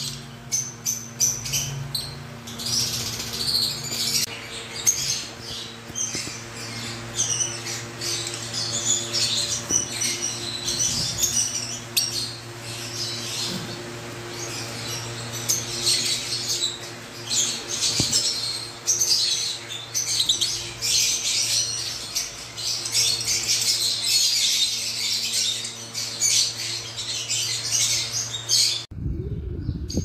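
Lovebirds chirping and chattering, a dense run of short, high, irregular calls over a steady low hum. The sound stops abruptly about a second before the end.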